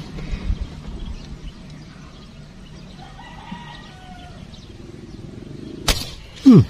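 A single sharp shot from a PCP air rifle near the end, followed at once by a loud cry that falls in pitch. Before it, faint crowing from a rooster in the background.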